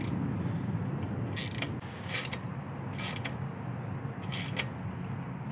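Ratchet wrench clicking in four short bursts as the 10 mm bolt on the exhaust slip-on joint is tightened down.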